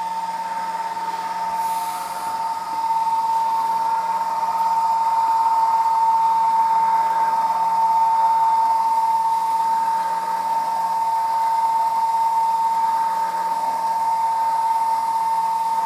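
12-volt DC gear motor of a solar tracker drive running steadily, a constant whine with a low hum under it, turning the threaded drive rod; a little louder from about three seconds in.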